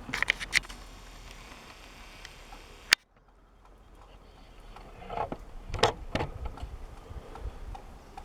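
A few light clicks and knocks, with one sharp click about three seconds in where the steady background hum cuts off suddenly, and another cluster of knocks a couple of seconds later.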